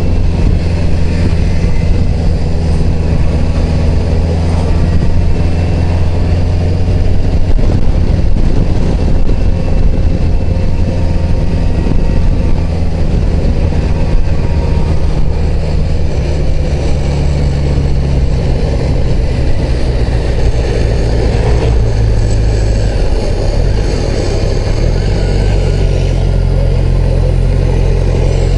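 Engine of a large touring motorcycle running at road speed, heard from the rider's seat with steady wind and road noise. The engine note changes about three-quarters of the way through, as the revs shift.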